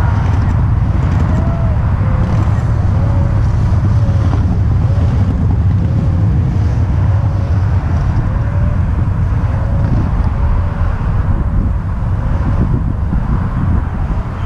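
Wind buffeting the camera microphone: a loud, steady low rumble that rises and falls slightly.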